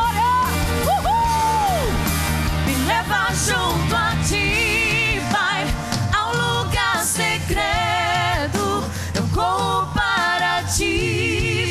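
Two women singing a gospel song through handheld microphones over instrumental backing. They hold long notes with a strong vibrato, and one note about a second in bends down at its end.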